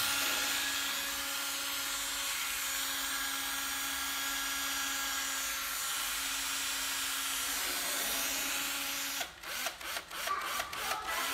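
Hitachi 12V cordless drill's motor running steadily and smoothly at speed for about nine seconds, then stopping and being pulsed on the trigger in a string of short bursts near the end.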